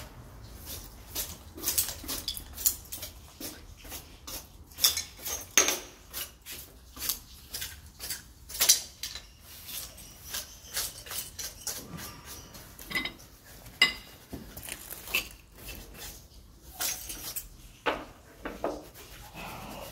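Irregular sharp clicks and clinks of hard objects against ceramic floor tiles from tiling work, coming every fraction of a second and loudest in a few strikes in the middle.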